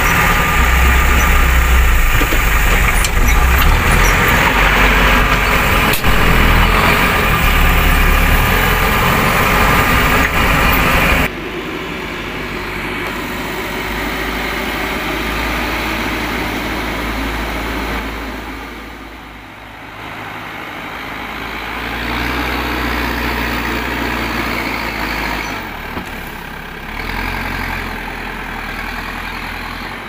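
Terex TLB 740S backhoe loader's diesel engine running under load, loud and close inside the cab. About 11 seconds in the sound drops suddenly to the same machine's engine heard from outside, which dips and picks up again as it pushes soil.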